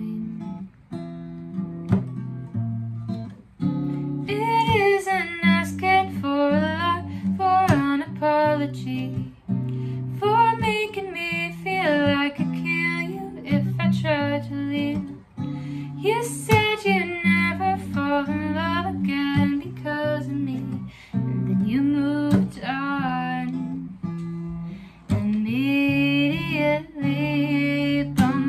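A woman singing over a capoed Seagull acoustic guitar. The guitar plays alone for about the first four seconds before the voice comes in, with wavering held notes.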